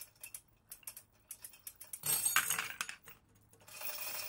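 Steel chain and hook of a hanging crane scale clinking and rattling while a 3D-printed ABS test bar is pulled, with a louder clatter about two seconds in. A steady hiss sets in near the end.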